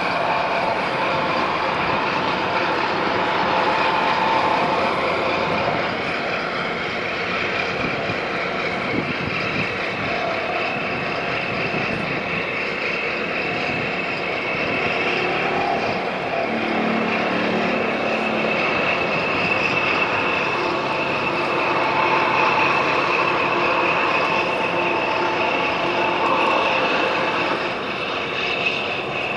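Steady mechanical drone of large marine diesel engines, with a high whine running through it.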